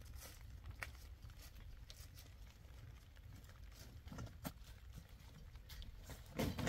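Footsteps crunching on dry leaves and stony ground with the rustle of a large cloth sack being carried, over a low steady rumble. Near the end a louder rustle as the heavy sack is swung down and set on the ground.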